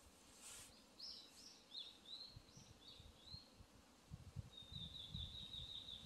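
Small forest songbirds calling: a run of short chirps, then a high, rapid trill near the end. Low gusts of wind rumble on the microphone, growing stronger in the second half.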